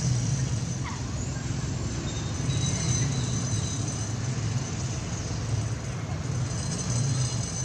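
Steady low rumble of outdoor background noise, with thin steady high tones above it.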